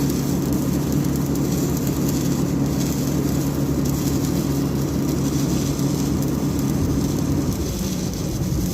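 Heavy machinery running with a steady, even drone. The pitch shifts slightly near the end.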